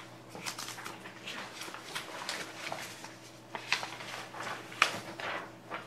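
Paper sheets being shuffled and handled in a string of short, irregular rustles, the sharpest about four and five seconds in, over a steady faint hum.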